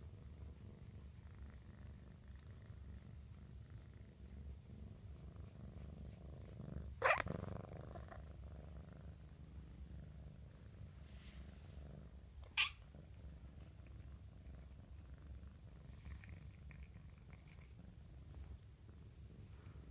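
A kitten purring steadily while it is stroked, a faint low rumble, the sign of a contented cat. Twice, a few seconds apart, a brief sharp noise cuts in.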